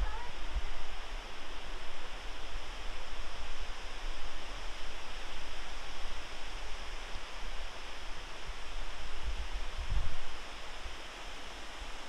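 Fukiware Falls: the river spilling over a horseshoe-shaped rock ledge, with a steady rush of falling water. Irregular low rumbles sit underneath, the strongest about ten seconds in.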